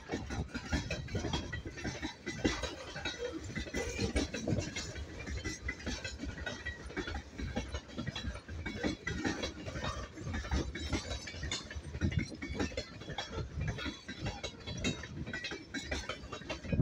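Freight train's tank cars and covered hopper cars rolling past close by: a steady, dense clatter and clanking of steel wheels on the rails.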